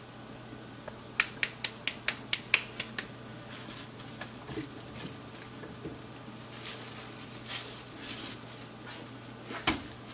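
A ball of corn masa slapped between the hands about nine times in quick succession, around four pats a second, then softer handling noises and one louder slap near the end as the masa is pressed flat on a plastic sheet.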